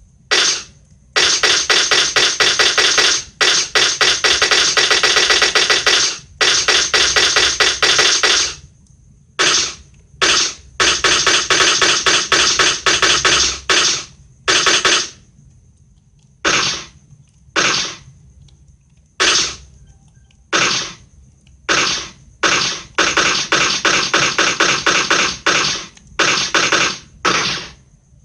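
Automatic gunfire sound effect: rapid shots in a long, near-continuous burst for the first several seconds, then a string of short bursts of a second or less separated by brief pauses.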